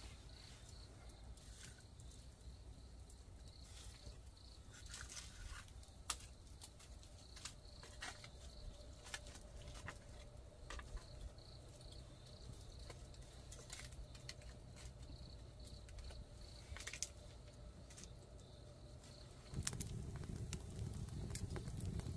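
Faint ambience: scattered light clicks and taps over a steady high insect chirring and a low hum, with a louder low rustling noise coming in near the end.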